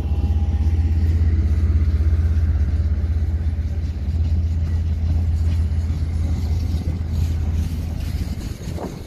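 KiwiRail DL-class diesel-electric locomotive passing close by, its engine giving a loud, steady low rumble that fades over the last couple of seconds as a string of empty flat wagons rolls past on the rails.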